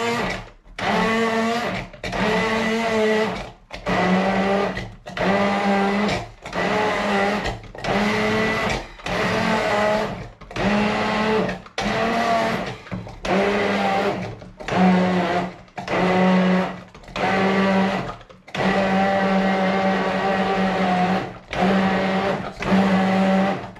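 Electric kitchen blender pulsed in short runs of about a second with brief pauses, then one longer run of nearly three seconds, grinding chillies with a little water into a spice paste.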